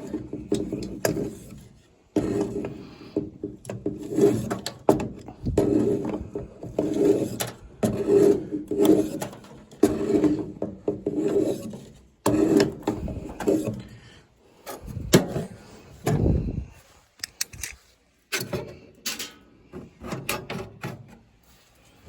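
Scraping and rubbing inside a furnace vent pipe to clear out loose chunks of debris, in repeated strokes about once a second. A few heavy knocks follow a little past the middle.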